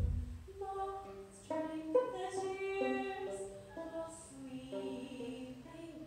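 A woman singing a slow, dark lullaby in long held notes while accompanying herself on violin, with soft sibilant consonants between phrases. A brief low thump sounds right at the start.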